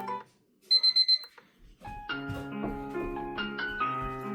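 Electronic tunes from the noise-machine alarm clock's small speaker as its built-in sounds are stepped through. One melody cuts off, a quick burst of high electronic beeps sounds about a second in, and a different piano-like chime melody starts about two seconds in.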